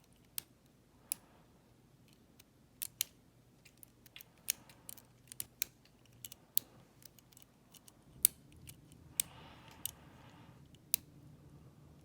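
Lock pick and tension tool working the pins of a Zeni cabinet lock: sharp, irregular metal clicks, about a dozen or more, with quiet gaps between.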